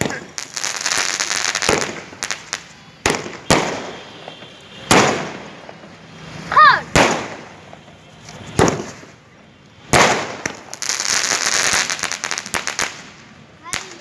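A 25-shot firework cake firing shot after shot: sharp bangs every second or two, some followed by a dense crackling burst lasting a second or two.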